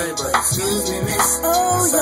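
A hip-hop/R&B song with a sung vocal and heavy bass, played loud through a car audio system of Focal K2 Power component speakers and JL Audio 12-inch subwoofers, heard inside the vehicle's cabin.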